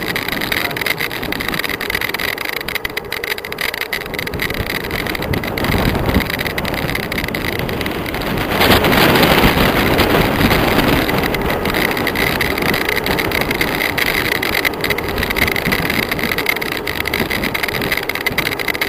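Wind rushing over the microphone of a bicycle coasting down a mountain road, mixed with tyre and road noise and the cars alongside. It swells louder for two or three seconds about eight and a half seconds in.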